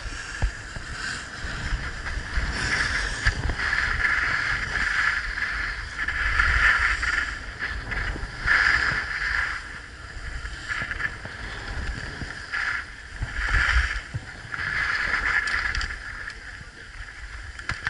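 Skis carving and scraping on packed snow through a series of turns, each turn a swell of hiss, with wind rumble on the microphone; the scraping stops near the end.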